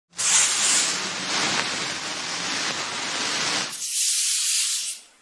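A steady rushing hiss like spray or wind noise; about four seconds in its deeper part drops away, leaving a thinner high hiss that cuts off about a second later.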